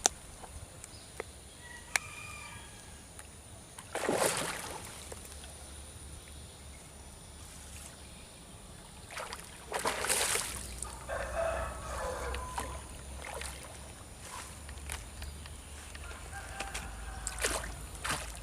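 A rooster crowing several times over steady outdoor background noise, with two short, louder noisy bursts about four and ten seconds in.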